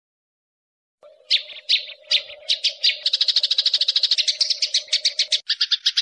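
Sparrow chirping. A few separate chirps about a second in quicken into a rapid, even run of chirps, about eight a second, over a faint steady hum that stops near the end.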